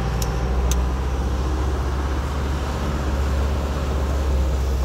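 Inside a moving vehicle's cabin: a steady low engine drone with road noise from tyres on a wet street. Two faint short ticks come under a second in.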